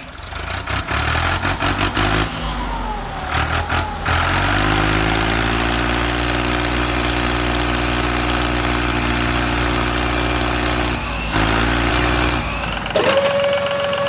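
Tractor engine running, its pitch shifting over the first few seconds and then holding steady. About a second before the end, the engine rumble drops away and a steady high whine sets in.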